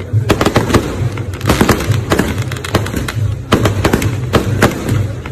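Aerial fireworks display: a rapid, continuous run of bangs and crackles from shells bursting, several a second and overlapping.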